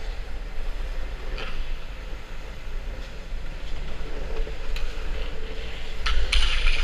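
Skateboard wheels rolling on a concrete parking-garage floor, a steady rumble, with a few sharp clacks, most of them near the end.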